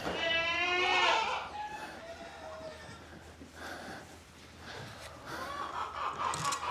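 Goat bleating: one quavering, wavering call lasting about a second at the start, with more bleating near the end.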